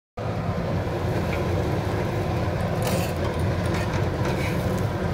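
Steady low rumble of kitchen background noise, starting a moment in, with a few faint clicks about three seconds in.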